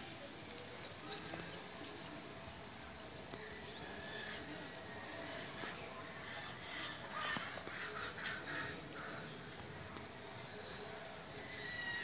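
Small birds giving short, high chirps over and over against steady outdoor background noise, with a sharp click about a second in.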